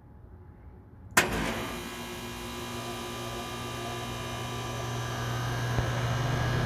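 Air conditioner compressor starting up about a second in with a sudden clunk, then running with a steady hum that slowly builds. It sounds normal after a reset, without the loud noise this newly replaced compressor had been making.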